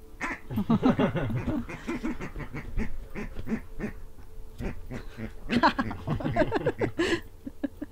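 A squeaky pig toy squeaking rapidly and over and over as a Bedlington terrier bites and chews it, in two hard flurries, about a second in and again around six seconds in, with scattered squeaks between.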